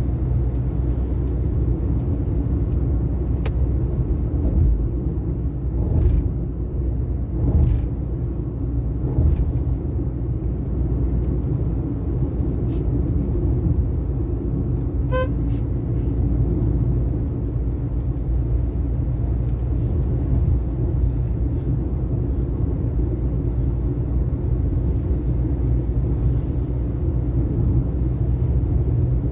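Steady rumble of a vehicle travelling along a highway, with other traffic swelling past a few times and a short beep about halfway through.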